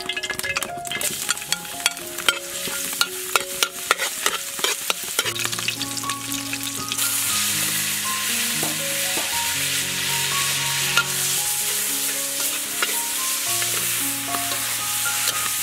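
Minced garlic and spring onion frying in hot oil in a wok: sharp crackling pops for the first few seconds, settling into a steady sizzle from about seven seconds in as it is stirred. Soft background music plays underneath.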